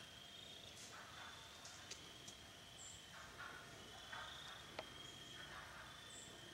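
Faint rustling of brush and a few sharp twig clicks from a young six-point buck thrashing its antlers in saplings during the rut, with short high chirps recurring throughout.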